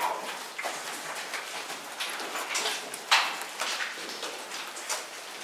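Footsteps of several people walking on the wet, gravelly floor of a mine tunnel, irregular scuffs and steps, with one louder clatter about three seconds in.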